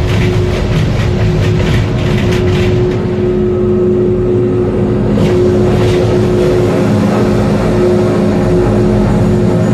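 Maokong Gondola cabin rolling through a station on its drive wheels, heard from inside the cabin: a steady machinery hum with a clear tone, and fast rattling clicks in the first three seconds and again about five seconds in.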